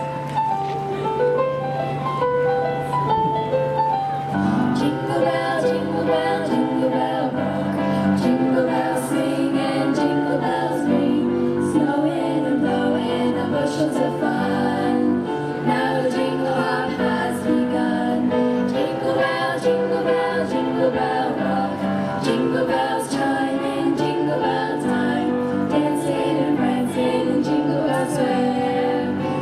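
Youth girls' choir singing in harmony: a single melody line at first, with lower voices joining about four and a half seconds in.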